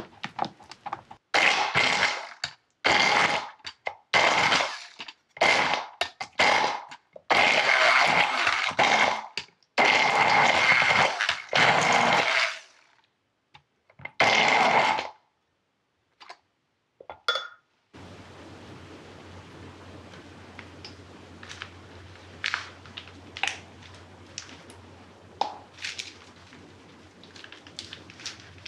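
Stick blender pureeing cranberry sauce in a glass measuring jug, run in about a dozen short bursts of half a second to two seconds, each with the same steady whine. After it stops, a faint steady low hum with a few light clicks and taps.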